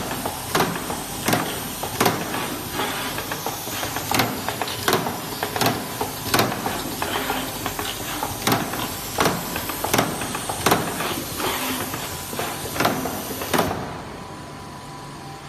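Automatic 18650 lithium cell spot welding machine running its cycle: sharp clicks about every 0.7 seconds, with a few short pauses, over a steady hiss of compressed air. The hiss stops near the end.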